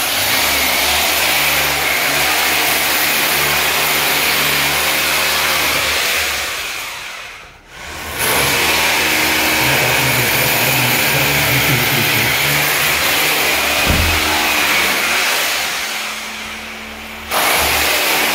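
Electric hammer drill running loud and steady, boring holes along the floor for termite chemical injection. Twice it winds down and drops out, about seven seconds in and again near the end, then starts up again abruptly.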